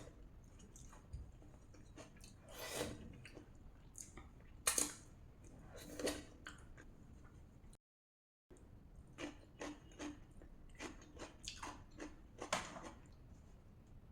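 Close-miked chewing and wet mouth sounds of someone eating rajma (kidney bean curry) and rice. There are a few separate bites first, then a quick run of small smacks and clicks near the end.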